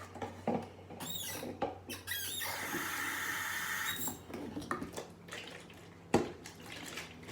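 Bottle being washed out at a sink: a run of short high squeaks from the wet bottle being rubbed, then tap water running into it for about a second and a half, followed by small knocks as it is handled.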